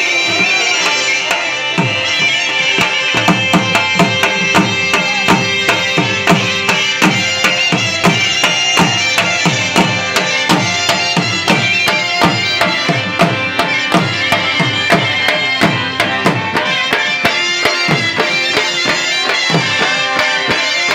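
Pashto saz matam mourning music: a dhol beaten steadily, its deep strokes falling in pitch at about two a second, under harmoniums holding sustained chords.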